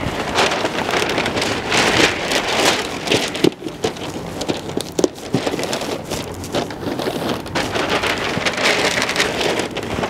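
Wrapping paper rustling and crinkling as it is handled and folded around a box, with many sharp crackles.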